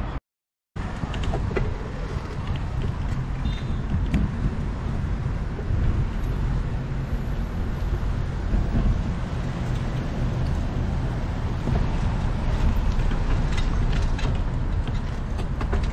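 City road traffic, cars passing, heard from a moving bicycle, with a low rumble of wind on the microphone. The sound drops out for about half a second just after the start.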